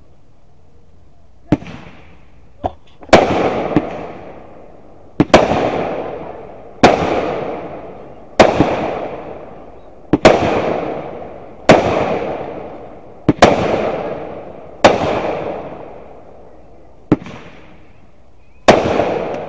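Keystone Fireworks 'Jump Start' 63-shot firework cake firing shots one after another. Two smaller pops come first, then about ten loud sharp bangs, roughly one every second and a half, each trailing off over about a second.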